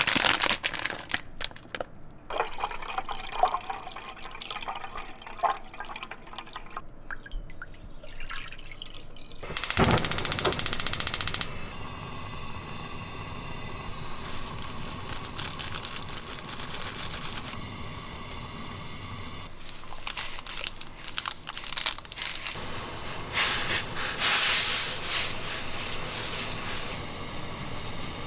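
Running water with clicks and knocks of handling in the first few seconds, a short loud rush about ten seconds in, then a steadier hiss of flowing water.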